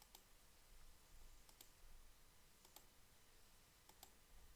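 Faint, scattered clicks of a computer mouse and keyboard, several in quick pairs, over near silence.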